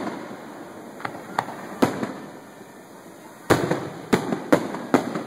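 Aerial firework shells bursting. Three booms come about a second apart in the first two seconds, then four louder booms follow about half a second apart, each trailing off in an echo.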